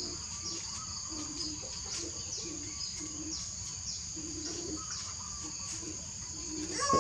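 Outdoor ambience: a steady high-pitched insect drone, with birds chirping short falling notes over and over and faint low notes repeating underneath.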